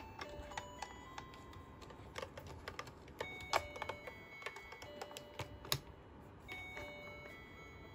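Hello Kitty toy cash register set being played with: quick clicks of plastic buttons and parts being pressed and handled, mixed with short electronic beeps at several different pitches from the toy.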